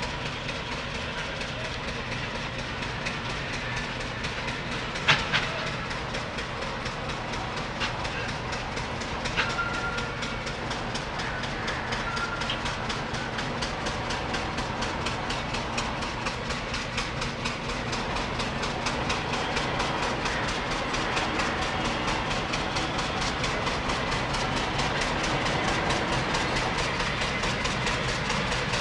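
Steam traction engine chuffing in a steady rhythmic beat as it drives slowly, growing gradually louder as it comes closer. A sharp click stands out about five seconds in, with another a few seconds later.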